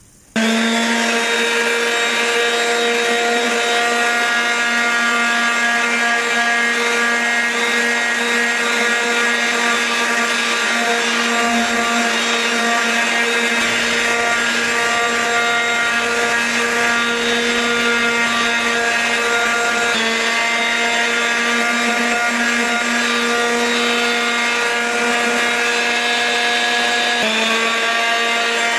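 Metabo electric detail sander switching on about half a second in and then running steadily with a strong hum, its pad sanding a wooden hatchet handle. Its tone shifts slightly twice near the end.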